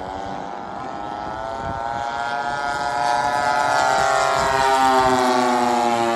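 Engines of two large radio-control warbird models, one a 35 cc two-stroke petrol engine, droning as the pair flies past in formation. The sound grows louder to a peak about five seconds in, and the pitch drops slightly as the planes go by.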